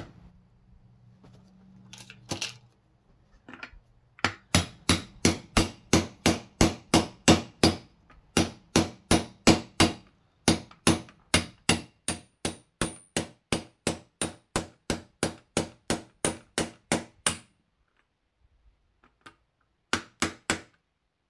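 Hammer striking a metal driver to tap a 6905-2RS sealed ball bearing into a dirt bike's rear wheel hub: quick, even blows about four a second for some thirteen seconds with two short pauses, then three more blows near the end.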